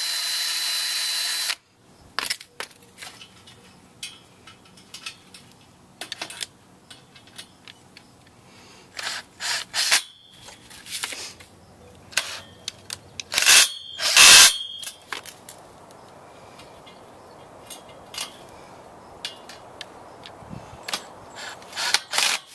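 Cordless drill running steadily as it pre-drills a 3/32-inch pilot hole for a self-tapping screw in the galvanized steel tube of a compost tumbler stand, stopping abruptly about a second and a half in. After that come scattered clicks and knocks of the parts being handled, with a few short bursts of the drill around the middle.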